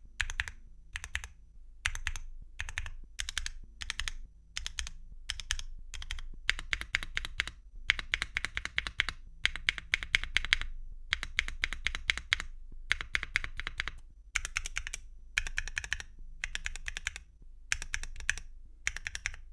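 Mechanical keyboard keystrokes on a foamless QwertyKeys Neo65 with a carbon-fibre plate, tactile switches and Cherry-profile PBT keycaps. The keys are struck in quick clusters of clacks, with short pauses between clusters.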